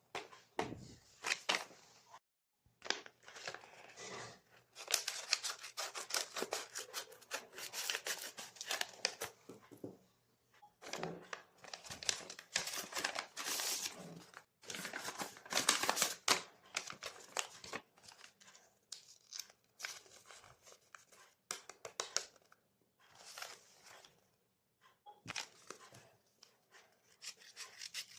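Blind bag packaging crinkling and tearing as it is opened by hand, in crackly bursts of a few seconds with brief pauses.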